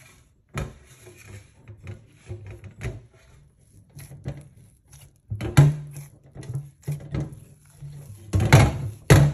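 Hand kneading pizza dough in a glass bowl: irregular squishing, pressing and thumping, with the loudest thumps about five and a half seconds in and near the end.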